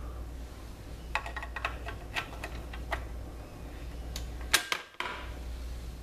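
Light plastic clicks and taps from a loose espresso-machine button panel being handled, about ten in quick succession, then two sharper clicks near the end, over a steady low hum.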